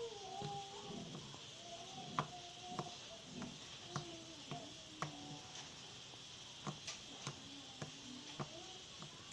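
Glitter-and-sequin slime being squeezed and poked close to the microphone for ASMR, giving about ten sharp, irregularly spaced pops and clicks, with faint wavering tones underneath.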